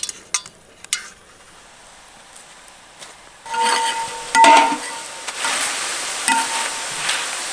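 A couple of metal clinks, then after a quiet spell, jackfruit strips deep-frying in a large pan of hot oil. A perforated steel ladle stirs through them, clanging and ringing against the metal pan, loudest about halfway through.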